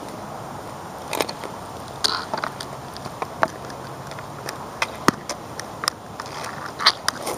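Street hockey sticks and the shot clacking on asphalt: irregular sharp clacks and knocks, the loudest about five seconds in and again near the end, over a steady outdoor hiss.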